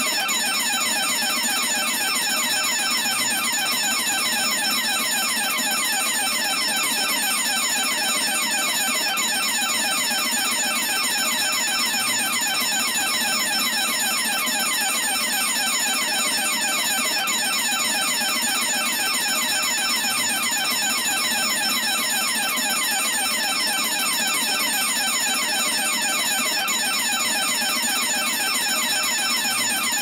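Electric burglar alarm bell ringing continuously in a rapid, unbroken clatter, steady in level with no pauses.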